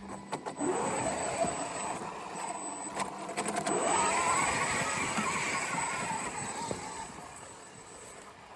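Traxxas X-Maxx RC monster truck's brushless electric motor whining as it speeds up, rising in pitch twice, then fading as the truck drives off. A few sharp knocks sound about three seconds in.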